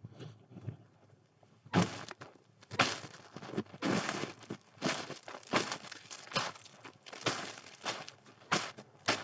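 Footsteps crunching in snow: after a quiet first second and a half, a steady walk begins, with a crunch about every half second.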